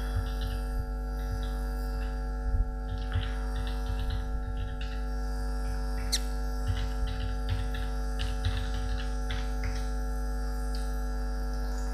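Steady electrical hum with several steady tones, overlaid by short runs of quick soft computer-keyboard clicks as a username and password are typed.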